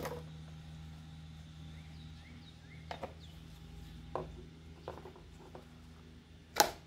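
Plastic engine timing-belt cover being handled and pulled off the engine: a few short, sharp plastic clicks and knocks, the loudest near the end, over a steady low hum.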